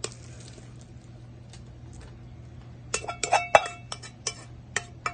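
A cooking utensil clinking against a metal pot while cooked glutinous rice is stirred into the coconut milk and panutsa mixture; after a single click at the start, a quick run of ringing clinks comes about three seconds in.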